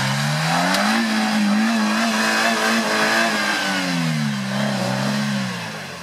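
Suzuki Jimny's engine revving hard under load as the 4x4 climbs out of a deep muddy rut. The revs rise over the first second, hold high, dip a little past halfway, then fall away near the end.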